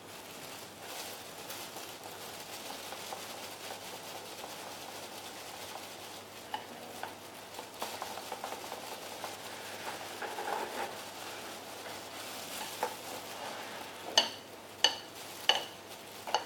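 Chopsticks whisking a thin batter of crispy-frying flour and water in a ceramic bowl: a steady soft swishing and scraping with small clicks. Near the end come four sharp, ringing taps of the chopsticks against the bowl.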